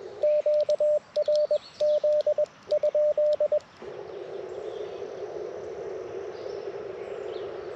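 Morse code sent on an Icom IC-705 and heard as the radio's sidetone: one steady tone keyed into dots and dashes in four short groups over about three and a half seconds, with the receiver muted between characters. After that the receiver comes back with a band of steady hiss from the narrow CW filter, the empty band he is listening on.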